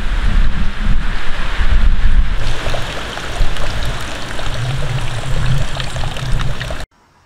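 Wind buffeting an outdoor microphone: a gusty low rumble under a rushing hiss, cutting off suddenly near the end.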